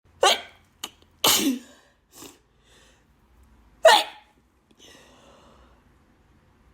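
A woman sneezing hard three times: about a second in and again some two and a half seconds later, with shorter, fainter sounds between the sneezes. These are allergy sneezes.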